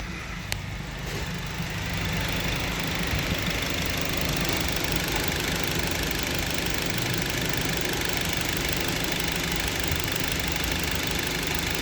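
2012 Honda Civic Si's 2.4-litre four-cylinder engine running at a steady high idle with a misfire. The number 4 cylinder's injector drops out at high RPM, which the owner traces to a failing ECM. The engine grows louder over the first second or two, then holds steady.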